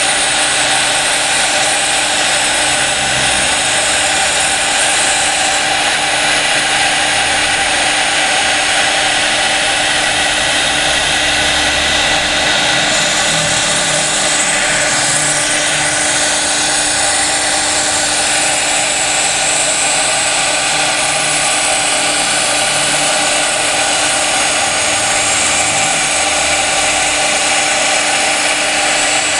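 CNC router spindle running steadily with its engraving bit cutting a line design into glass: a constant whine with a hiss of the bit grinding the glass.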